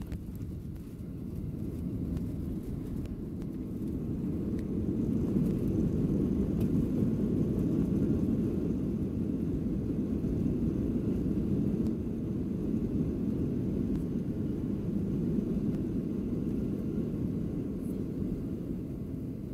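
Cabin noise of a Boeing 737-700 during its landing rollout, heard from over the wing: a steady low rumble of the engines and the wheels on the runway, ground spoilers up. It swells a few seconds in and eases off after about twelve seconds as the jet slows.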